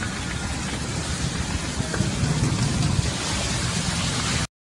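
Steady hiss with a low rumble, heard from inside a car moving slowly through hail slush in the wet, sounding much like rain. It cuts off suddenly near the end.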